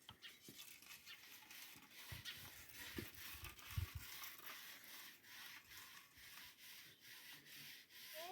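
Faint scraping and rubbing, with a few soft thumps about three and four seconds in.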